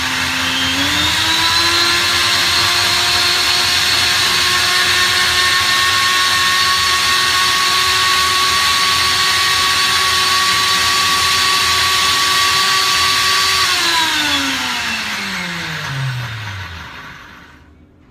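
High-speed countertop blender running, blending soaked cashews with liquid into a smooth dressing. Its motor whine steps up in pitch about a second in and holds steady. Near the end it winds down with a falling pitch as it is switched off, and stops.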